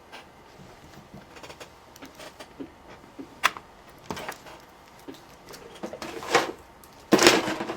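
Scattered small clicks, taps and rustles from tools and parts being handled on a workbench, busier and louder near the end.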